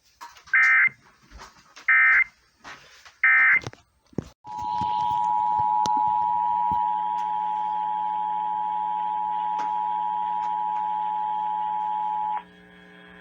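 Emergency Alert System broadcast tones: three short bursts of the SAME data header, about a second and a half apart, then the two-tone attention signal, a steady dual-tone alarm held for about eight seconds that cuts off near the end. A low steady hum runs underneath and carries on after the alarm stops.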